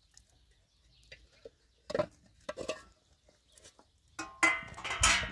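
A metal serving tray and drinking glasses knocking and clinking on concrete, with one sharper knock about two seconds in. A goat bleats near the end, the loudest sound here.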